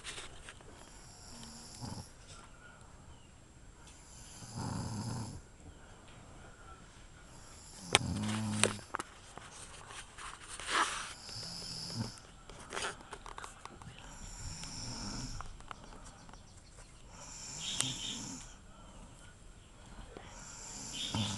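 A sleeping woman snoring, with a snore every three to four seconds.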